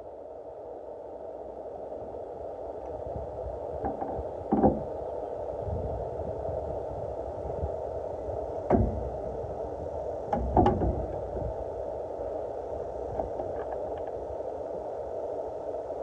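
A few sharp plastic knocks and clunks as a pickup's tail-light housing is worked and popped free of its mounting clips, over a steady hum.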